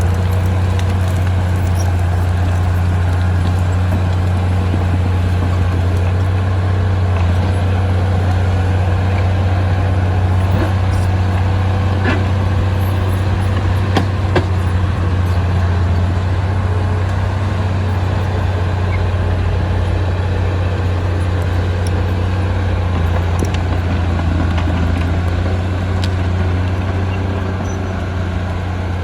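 Diesel engine of a D20P bulldozer running steadily under load, a deep even drone with a few sharp metallic clanks around the middle.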